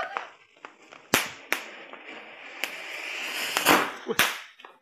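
Volcano fountain firework (mercon) spraying sparks with a rushing hiss that builds toward the end, broken by about five sharp cracks.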